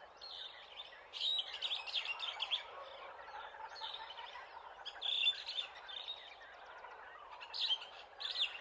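Birds chirping in repeated bursts of quick, high calls, one burst every second or two, over a steady background hiss.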